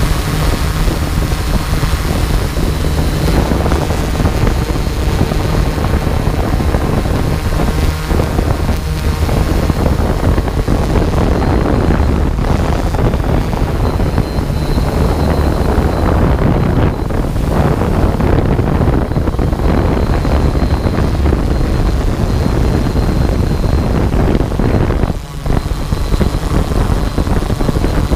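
Quadcopter drone's propellers and motors running steadily in flight, with a faint high whine from the motors and wind buffeting the microphone. The sound drops briefly near the end.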